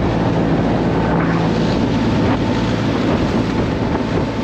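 Catamaran under way: a steady low hum and the rush of water churning in the wake, with wind buffeting the microphone.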